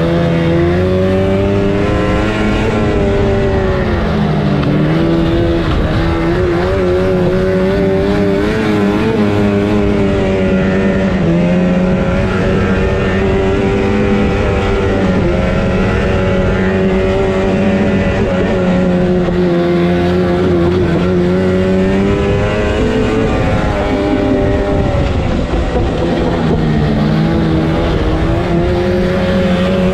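Yamaha Phazer snowmobile's two-stroke twin engine running under way, its pitch rising and falling with the throttle. It drops briefly about four seconds in and again about twenty-five seconds in, then climbs back.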